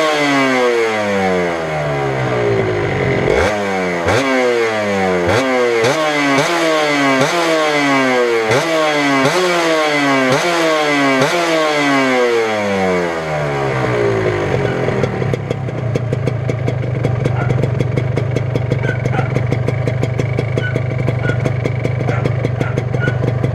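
Kawasaki Victor S 150 Super KIPS motorcycle engine revved with quick throttle blips about once a second, each sharp rise in revs falling slowly back, then settling to a steady idle about fourteen seconds in.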